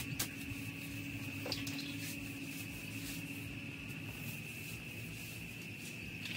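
A mop scrubbing faintly over a wet concrete floor, with a steady high-pitched tone and a low hum running underneath.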